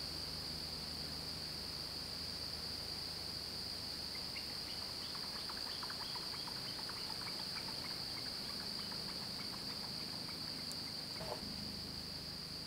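A steady, high-pitched insect chorus, crickets or similar, droning without a break, with a scatter of faint short chirps in the middle.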